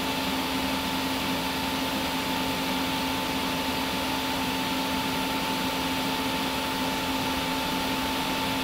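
Truck diesel engine held at high idle driving a PTO shaft-driven rotary screw air compressor as it builds system air pressure: a steady hum with a constant whine.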